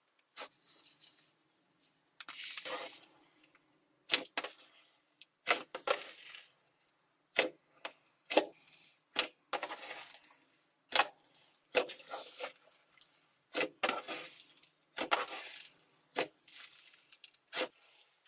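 Slime being squeezed and poked by hand, with sharp irregular pops and clicks, some trailing into a short crackle, about once a second.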